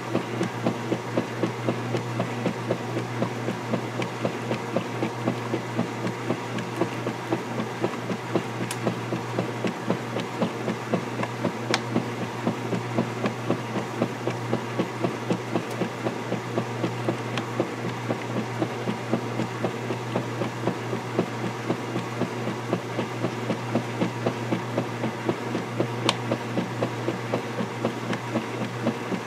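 KitchenAid direct-drive top-load washing machine agitating a load in water: its motor hums steadily while the large finned agitator churns back and forth in a regular rhythm, about three strokes a second, with water sloshing.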